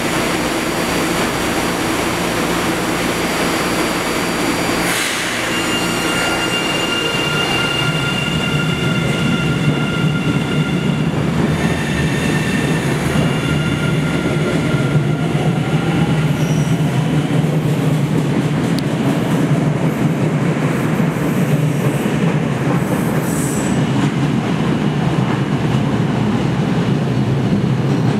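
MBTA Red Line subway train of new CRRC-built cars shutting its doors with a clunk about five seconds in, then a steady electronic tone for a few seconds. After that comes the low rumble of motors and wheels building as the train pulls slowly out of the platform, with a faint rising whine as it picks up speed.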